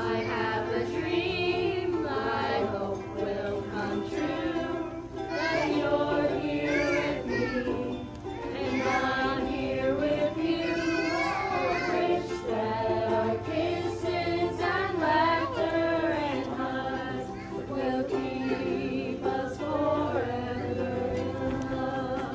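A group of children and adults singing a love song together, accompanied by strummed ukuleles.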